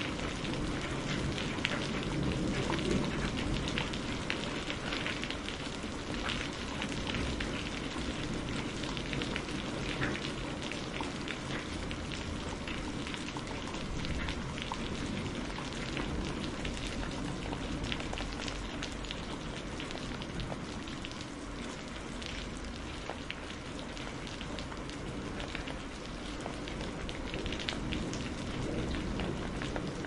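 Heavy rain falling steadily, many close drops ticking sharply over an even hiss of rainfall.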